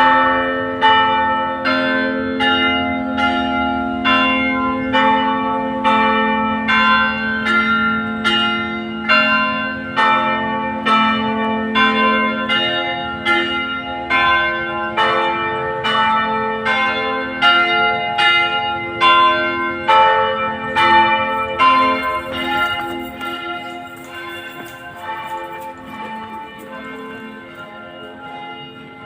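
Church bells ringing, struck over and over at about three strokes every two seconds, each stroke ringing on into the next. The strokes grow weaker and the ringing dies away over the last several seconds.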